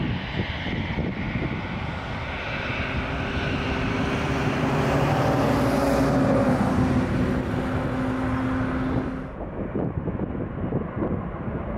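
Boeing 747-400's four turbofan engines at takeoff thrust as it lifts off and climbs out: a deep rumble with a steady low drone, loudest about halfway through. Near the end the sound cuts abruptly to quieter jet noise from a Boeing 757-300 accelerating down the runway.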